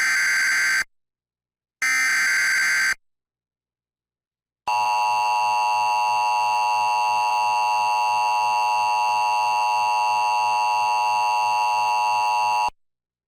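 Emergency Alert System tones heralding a severe thunderstorm warning: two bursts of the SAME header's digital data, about a second each and a second apart, then the steady two-tone EAS attention signal, held for about eight seconds before it cuts off.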